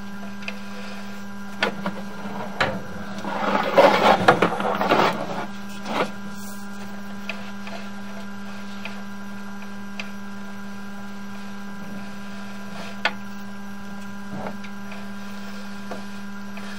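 Sewer inspection camera rig humming steadily while its push cable is drawn back out of the pipe, with scattered clicks and a louder burst of scraping and rattling about four seconds in.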